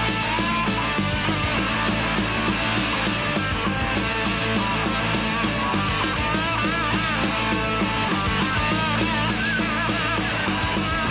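Rock band playing an instrumental break between sung verses, with guitar and organ carrying wavering melodic lines over a steady backing.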